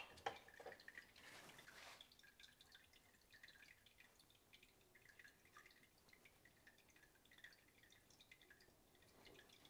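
Faint, scattered drips and trickles of water in a pump-fed Blue Bowl concentrator, with a brief swish of water in the first couple of seconds.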